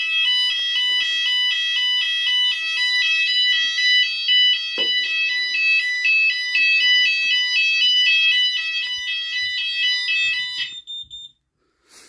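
Red wall-mounted fire alarm sounder on a Notifier ID2002 system sounding a loud, fast two-tone alternating alarm, set off by the optical smoke detector under test. It cuts off suddenly near the end.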